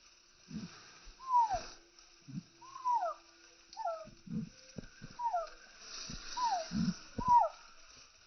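Chickens calling: a string of short, downward-sliding calls, about one a second, mixed with low clucks and a few sharp clicks.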